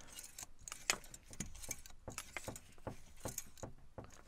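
8-inch safety wire pliers being spun: the spinner knob is pulled out several times, turning the spiral shaft and jaws to twist the safety wire, giving a run of irregular metallic clicks and rattles.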